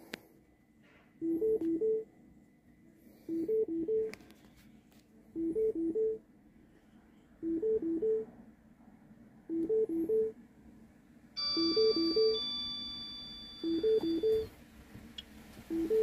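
Car's electronic warning chime repeating with the ignition on: a short two-pitch figure about every two seconds. About eleven seconds in, a steady high-pitched whine joins for about three seconds.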